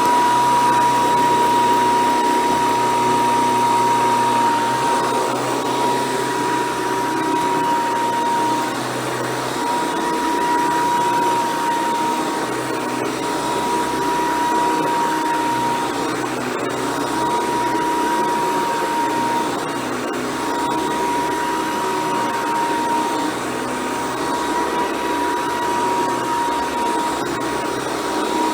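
Hoover Decade 800 convertible upright vacuum cleaner running continuously while vacuuming, its motor and fan giving a steady, even whine.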